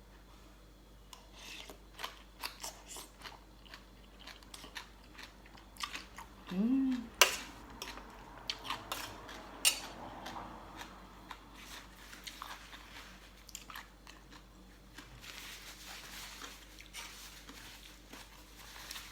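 Close-up eating sounds: chewing and biting on papaya salad with chicken feet, made up of scattered wet clicks and smacks, with two sharper clicks about seven and ten seconds in. A brief low hum-like vocal sound comes about six and a half seconds in.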